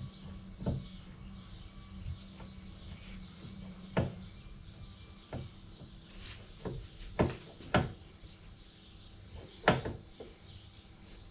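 Scattered metallic knocks and clinks, about seven spaced irregularly, the loudest near the end: universal-joint parts and hand tools being handled and tried in place.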